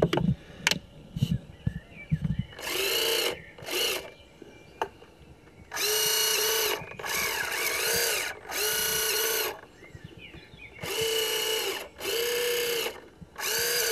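Small electric motors turning the rotating bait hoppers of a homemade remote-control bait boat. They whir in about eight short bursts of under a second each, with the pitch bending briefly as each burst starts and stops. A few handling knocks come in the first two seconds.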